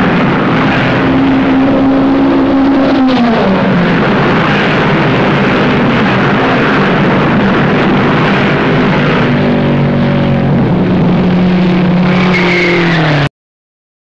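Dirt-track late-model stock car engine running at speed. Its pitch holds, drops about three seconds in, then rises and falls again. The sound cuts off suddenly near the end.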